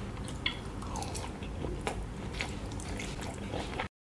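Close-up chewing of a fried sausage stuffed with glutinous rice: soft wet mouth clicks and smacks over a steady low hum. The sound cuts off abruptly to silence near the end.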